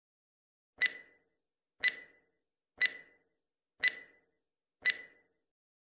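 Countdown-timer clock tick sound effect: five sharp ticks, one a second, each with a short ringing tone.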